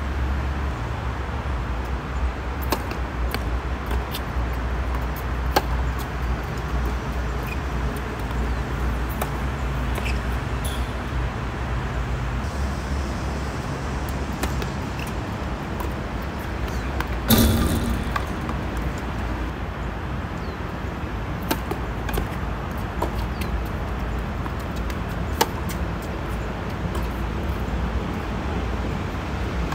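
Tennis balls being struck by racquets and bouncing on a hard court: short sharp pops scattered through, with one louder knock a little past halfway, over a steady low rumble.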